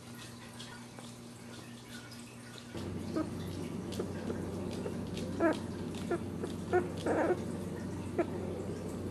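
Ten-day-old dachshund puppies squeaking and whimpering: about seven short, high cries spread over several seconds, over a steady low hum that starts about three seconds in. Before that, only faint small clicks and smacks.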